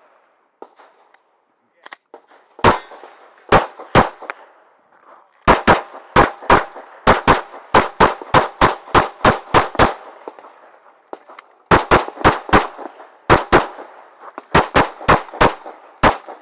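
Glock 35 pistol in .40 S&W fired rapidly in a practical-shooting course of fire: some thirty sharp shots in quick strings of about three a second, broken by short pauses of a second or two.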